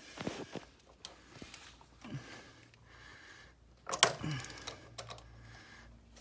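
Scattered clicks and light knocks of a flathead screwdriver working a water heater's drain valve, with one sharper knock about four seconds in.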